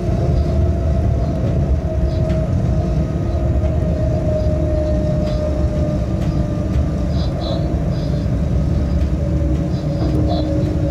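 Freight train running at steady speed, heard from the locomotive cab: a constant low rumble of the wheels on the rails with two steady whining tones from the drive that drift slightly in pitch, and faint scattered clicks.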